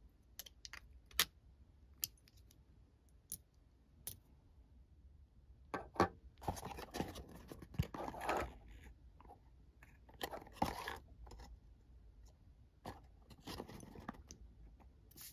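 Handling noise of a perfume unboxing: a few sharp clicks and taps from the bottle and its cap, then the stiff cardboard perfume box scraping and rustling as its flaps are worked open, in several short spells.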